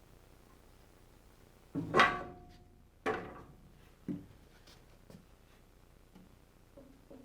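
Knocks and clatter of tools being handled on the bandsaw. A close pair about two seconds in is the loudest, the second ringing briefly like metal, followed by lighter knocks about a second apart and a few faint taps.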